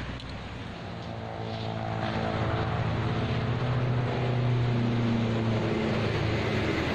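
A heavy vehicle's engine hum with a low pitch, growing louder over a few seconds and then holding, over steady road traffic noise.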